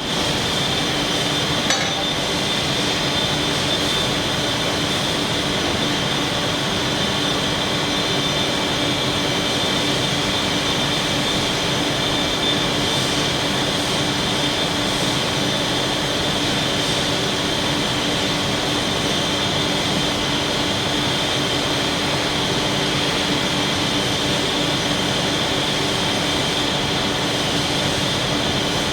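Morando CNC vertical turning lathe running: a steady mechanical hum with a high, even whine, and one faint click about two seconds in.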